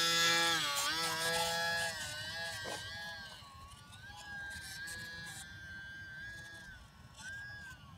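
Electric motor and propeller of a small homemade RC plane whining as it is launched and climbs away. The pitch dips and recovers with the throttle, and the whine grows fainter as the plane flies off.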